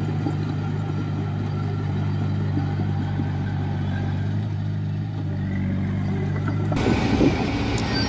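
Komatsu bulldozer's diesel engine running at a steady pitch. About seven seconds in it abruptly gives way to a rougher, noisier sound.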